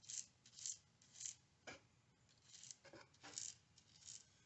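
Faint, short brushing strokes, about eight of them: a small brush daubing light oil onto the abrasive globules of a silicon carbide ball hone.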